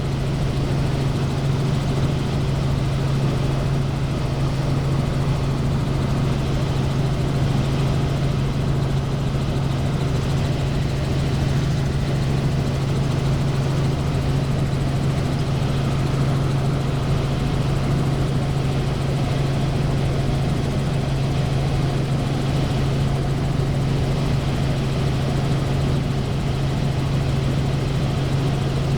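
Helicopter in flight: a loud, steady drone with a strong low hum over a constant wash of noise.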